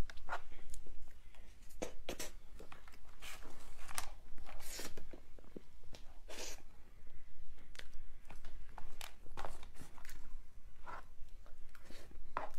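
Close-miked eating sounds of soft cream cake: irregular wet mouth smacks and chewing as spoonfuls of whipped cream and sponge are eaten.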